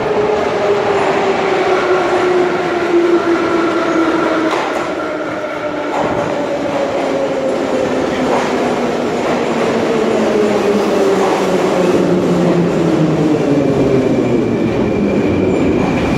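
Moscow Metro train of older green 81-717/714 cars running along the platform as it pulls in, its motor whine falling steadily in pitch as the train slows.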